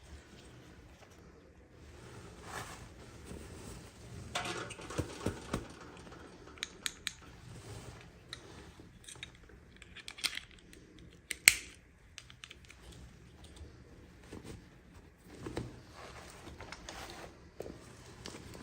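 Hands handling small plastic toy pieces and packaging: scattered light clicks and taps with some rustling. One sharp, louder click comes about eleven and a half seconds in.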